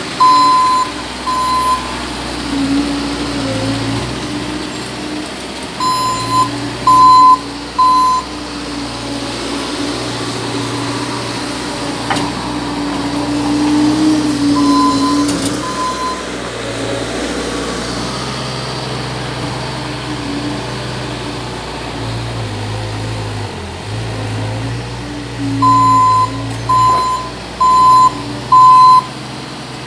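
Bobcat S450 skid-steer loader's diesel engine running as the machine manoeuvres, with its reversing alarm sounding in short groups of two to four loud beeps, several times over.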